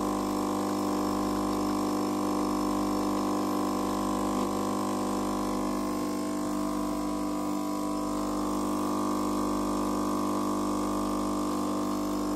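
Melitta Caffeo CI bean-to-cup coffee machine running steadily as it dispenses hot milk from its spout: a constant mechanical hum that shifts slightly in tone about six seconds in.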